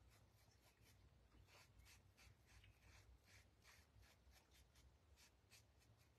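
Faint, scratchy strokes of a painting tool laying red paint onto a small wooden star, quick and irregular, about two to three a second.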